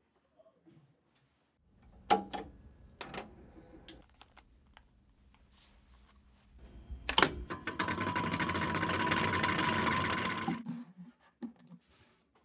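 Two sharp clicks, then a louder click and a steady mechanical whirr with a held tone that runs about three seconds and stops abruptly.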